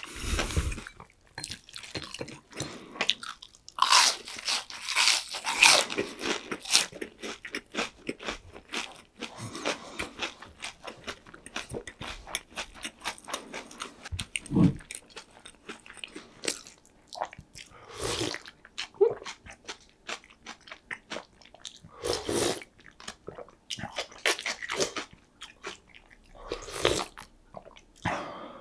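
Close-miked eating: biting and chewing crispy deep-fried pork cutlet (donkatsu), a run of crunches with a few louder bites scattered throughout.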